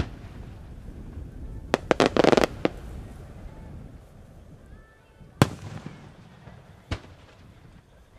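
No. 7 (7-gō, about 21 cm) aerial firework shells being launched and bursting: a quick cluster of sharp bangs about two seconds in, then single sharp bangs at about five and a half and seven seconds, over a low rumble.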